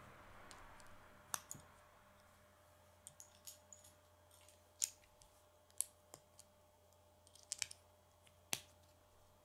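Plastic K'nex rods and connectors clicking as they are handled and snapped together: a dozen or so sharp, irregular clicks, some in quick pairs and small clusters.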